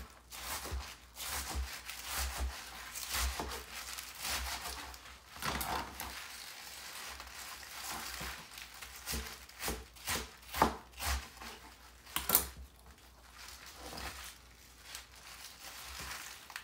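Kitchen knife chopping leafy greens on a plastic cutting board: irregular knocks of the blade on the board, among the rustle of leaves being gathered, with a few louder strikes about ten to twelve seconds in.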